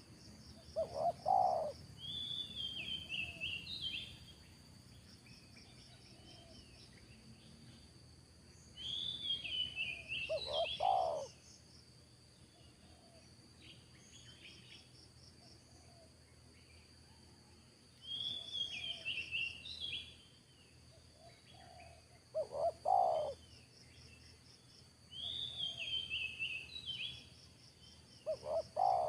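Spotted dove cooing in four short phrases several seconds apart, with another bird's higher chirping song repeating in between and a faint steady insect trill throughout.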